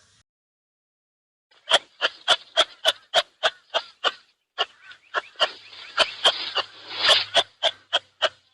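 An animal giving a fast series of short, sharp calls, about three a second, starting after a second and a half of silence and pausing briefly about halfway.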